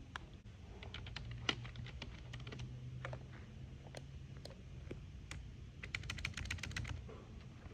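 Light, irregular clicks, with a quick run of them about six seconds in, over a low hum.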